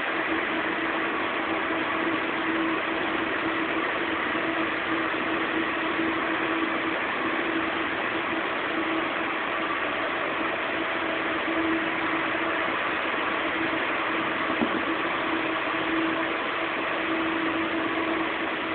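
AEC STAR T5 300 kVA UPS running: a steady rushing noise with a steady mid-pitched hum tone through it, and one brief click about three-quarters of the way through.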